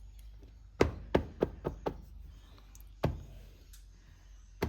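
Light knocks and taps: five in quick succession about a second in, then two more single knocks, one around three seconds in and one near the end, from hands, tools and a mould at a work bench.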